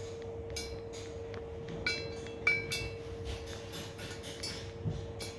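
Metal tools and parts clinking and tapping while a cylinder head is handled and inspected. There are a string of light clinks with a short ring, the sharpest a few in a row around two to three seconds in, over a steady background hum.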